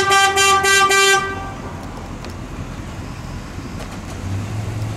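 Car horn honking in a quick run of short toots on one steady pitch, stopping after about a second; a low engine hum rises near the end.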